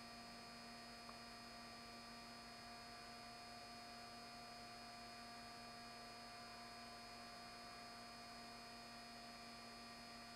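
Near silence: a faint, steady electrical hum made of several fixed tones over a light hiss.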